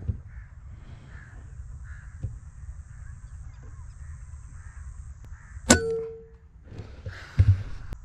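A single sharp PCP air rifle shot about two-thirds of the way in, with a brief metallic ring after it, over birds calling repeatedly in the background. A second loud knock comes near the end.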